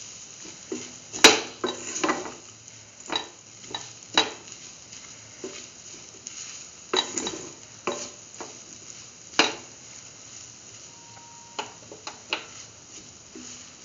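Utensil scraping and knocking against a pan while a dry semolina and potato mixture is stirred through, over a low sizzle of frying; the knocks come irregularly, the loudest about a second in.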